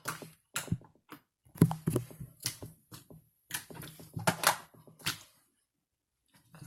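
Slime being squeezed and poked by hand, making irregular sticky clicks and pops that fall quiet about five seconds in.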